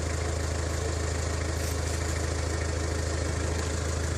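Steady low hum of an engine idling, with a faint steady whine above it.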